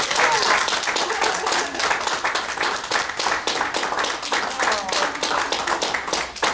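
A small group of wedding guests applauding, with a few voices cheering among the claps. The applause thins a little near the end.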